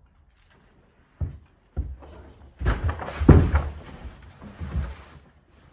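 A box spring bumping and scraping as it is slid down a staircase: a couple of dull thumps, then a longer rasping scrape with more thumps through the middle.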